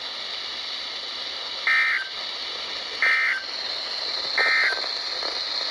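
Emergency Alert System end-of-message signal on a weather radio broadcast: three short data bursts about a second and a half apart over steady radio hiss. It marks the end of the warning message.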